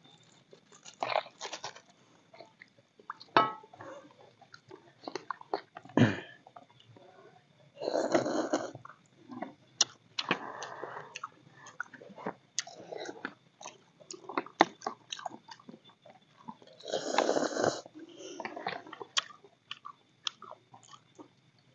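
Two people eating noodles from plastic bowls: utensils clicking and scraping on the bowls and chewing, with two longer, louder slurps about 8 seconds in and about 17 seconds in.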